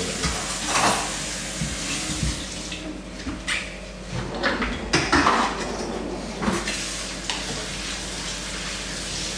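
Pots, pans and utensils clattering as they are handled at a kitchen counter, about half a dozen sharp knocks over a steady hiss.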